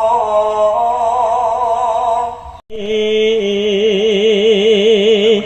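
A solo voice sings a slow Javanese chanted verse, holding long notes with a wide wavering vibrato in two phrases, with a short break about two and a half seconds in.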